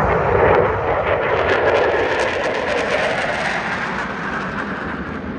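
Roar of Navy F/A-18 Super Hornet jets passing overhead. The roar crackles through the middle and fades away toward the end.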